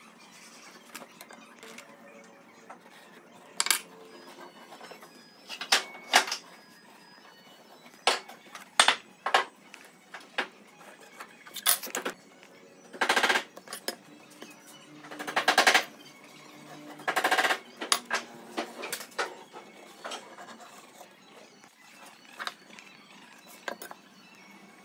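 Ballpoint pen scratching along a template as its curve is traced onto a wooden board, in a few strokes of under a second each, among scattered clicks and taps as the template and a metal square are handled and set down on the board.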